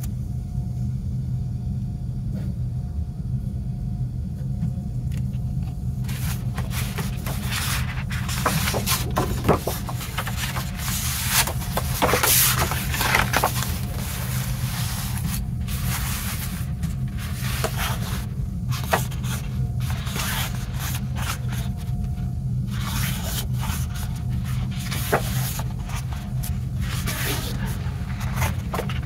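Paper and card being handled: booklet pages, a paper insert and a trading card sliding and rustling against each other, with scattered small taps, starting a few seconds in. A steady low hum lies under it.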